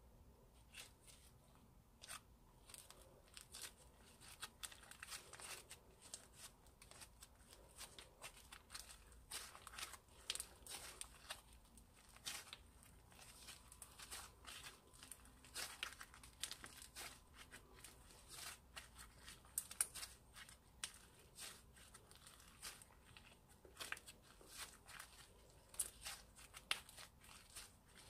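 Hands kneading and stretching white slime as crumbled pink makeup is worked in: a quiet, irregular run of small sharp clicks and crackling pops, with a few louder snaps.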